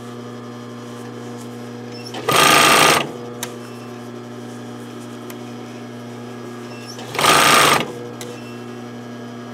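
Domestic sewing machine running in two short bursts of stitching, each under a second, about two and seven seconds in, sewing a seam through thick terry cloth. A steady low hum lies underneath between the bursts.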